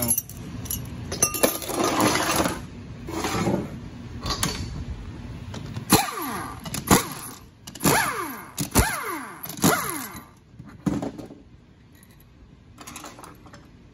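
Handheld power impact wrench run in short bursts to back out the bolts holding the two halves of a 4L60E automatic transmission's 13-vane oil pump together; after each burst the whir falls in pitch as the tool spins down. Metal parts clink between bursts, and it goes quieter near the end.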